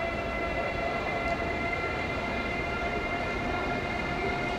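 Train sound: a steady whine of several held tones over a low rumble, with a faint tick about a second in.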